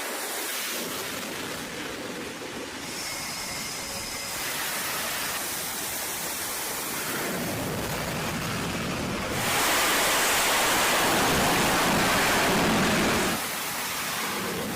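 Jet engine noise on a carrier deck: a steady rushing hiss that grows a little louder about four seconds in. A much louder stretch begins about nine and a half seconds in and cuts off abruptly about four seconds later.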